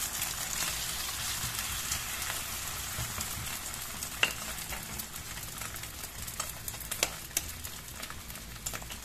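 Beaten egg sizzling in hot oil in a nonstick frying pan, a steady sizzle with a few sharp pops. The sizzle slowly dies down.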